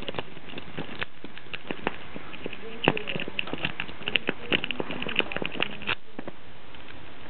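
Quick, irregular small metal clicks and scrapes of a half-hook lock pick working the pins inside a Master Lock padlock held under a tension wrench. The clicks come thickest in the middle. The lock does not open.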